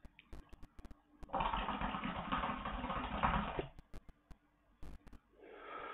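Hookah bubbling as a long draw is pulled through the hose: a steady rush of bubbling water that lasts about two and a half seconds, then stops. A softer breath follows near the end.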